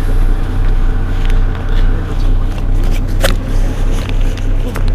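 Mercedes-Benz Citaro city bus engine idling with a steady low hum while the bus stands still. A single sharp click comes a little over three seconds in.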